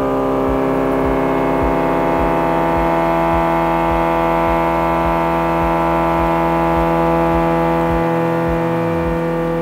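AVL Racetech's 2-litre turbocharged hydrogen combustion engine running at a high, steady speed under full load on the dynamometer, heard from the test-cell control room.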